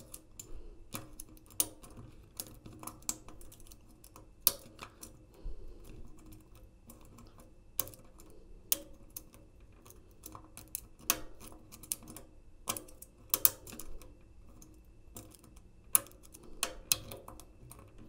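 Metal lock pick and tension wrench working the key-override keyway of a Master Lock X125ML digital safe, a double-sided wafer lock, while its second row of wafers is picked. Scattered light clicks and scrapes come at an irregular pace, with a few sharper clicks among them.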